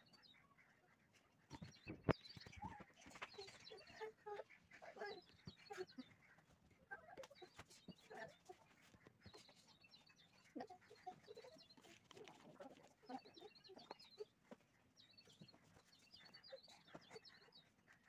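Near silence with faint animal calls in the background, including short high chirps repeating throughout. A single sharp click about two seconds in.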